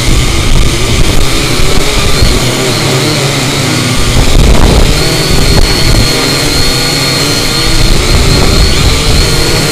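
Syma X8C quadcopter's brushed motors and propellers whining steadily in flight, heard from the camera mounted on the drone itself, with heavy wind buffeting on the microphone.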